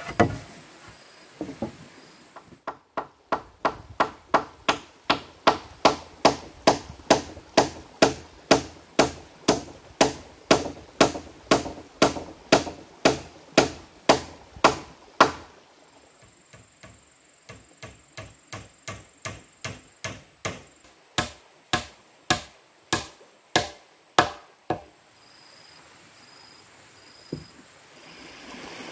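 Repeated blows of a hand tool striking wood, about two a second, in two long runs with a short pause about halfway.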